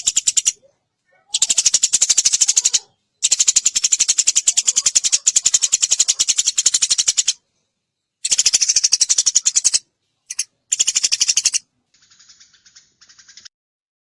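Eurasian tree sparrow chattering in rapid trills of dry, evenly repeated chips. The trills come in bursts of one to four seconds with short silent gaps between them, and a fainter chatter comes near the end.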